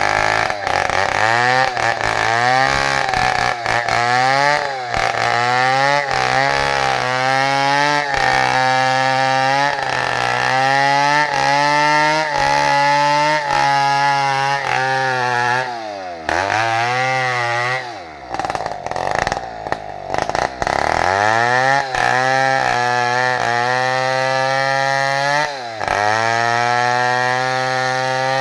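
Two-stroke chainsaw running at high revs as it cuts into the trunk of a large bayur tree, its pitch sagging and recovering as the bar loads in the wood. Past the middle it slows for a few seconds, then revs back up and keeps cutting.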